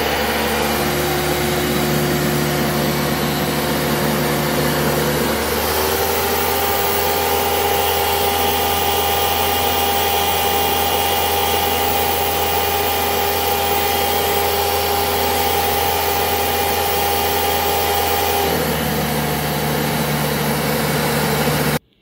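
Hoover Caddy Vac U5117 upright vacuum's 12-amp motor and 20-blade fan running steadily with a motor whine. About five and a half seconds in the pitch rises slightly as the airflow is sealed off for a suction reading on a vacuum gauge, falling back about 18 seconds in; it stops abruptly near the end.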